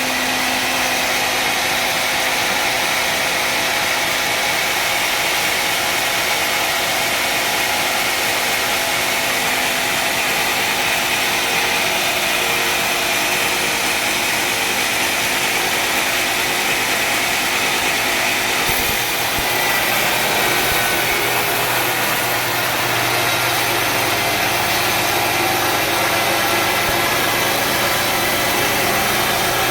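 Sawmill engine running steadily with constant mechanical noise; about two-thirds through the sound shifts abruptly and a lower steady engine note comes in.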